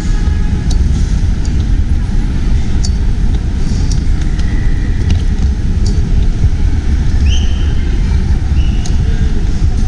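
Steady low rumble of a moving vehicle, with scattered light clicks and rattles and a couple of short high squeaks in the second half.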